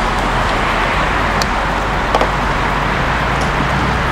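Steady traffic and machinery noise with a low hum underneath, and a few faint clicks.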